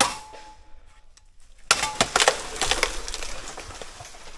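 A machete chop into a green bamboo culm, with a short ringing note, then about two seconds in a run of sharp cracks and a long crackling rustle as the cut bamboo splits and crashes down through the dry clump.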